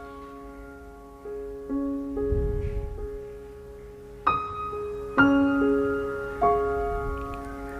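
Soft, slow piano music: single notes and chords struck every second or so, each ringing out and fading before the next.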